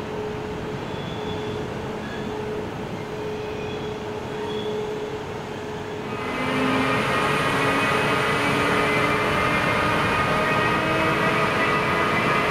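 Thalys high-speed train moving slowly with a steady hum. About six seconds in, a louder sound takes over: a Siemens-built SNCB class 18 electric locomotive passing close, with several steady high whining tones.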